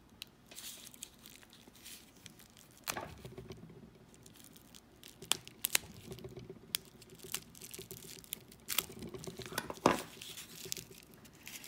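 Small plastic-wrapped packets being cut open with a small knife and handled: crinkling and tearing wrap, with scattered sharp clicks and scratches, the strongest at about three seconds and near the end.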